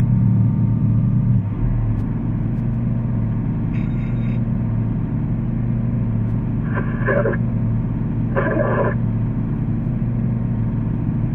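Steady low drone of a vehicle's engine and road noise heard inside the cab, with a few short, higher-pitched bursts in the second half.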